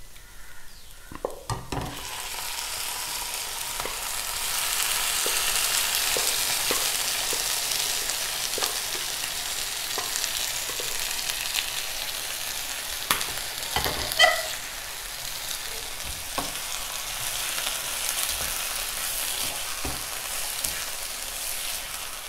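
Boiled beef pieces added to a non-stick pan of fried crushed dried chillies and shallots. The hot pan starts sizzling about two seconds in and keeps sizzling steadily while a wooden spatula stirs, with its scrapes and taps on the pan. About fourteen seconds in there is a sharper clatter with a brief ring.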